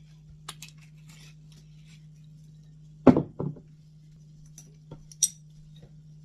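A glass bottle set down on a wooden table: two knocks about three seconds in, followed near the end by a couple of light glass clinks.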